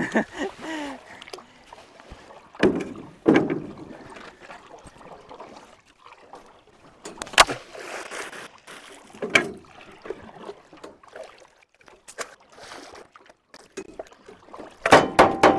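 Irregular splashing and sloshing of stream water, with a sharp knock about seven seconds in.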